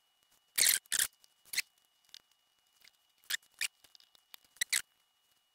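Short metallic clicks and scrapes of a small chainsaw carburetor being handled and taken apart by hand, about seven sharp sounds spread out, the loudest pair about half a second to a second in.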